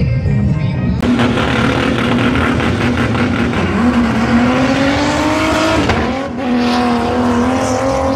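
Car engine at a drag race, revving with its pitch rising steadily for a couple of seconds. The pitch drops sharply about six seconds in, then holds steady.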